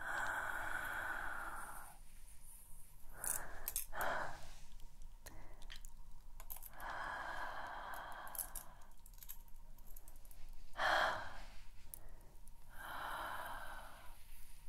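A series of breathy, sigh-like exhales close to the microphones, some about two seconds long and some short, with light clicking and tinkling from long metallic claw-tip nails moving about.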